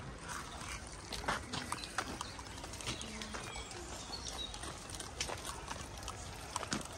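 Footsteps on a dirt garden path: irregular light crunching steps. Short bird calls are scattered among them.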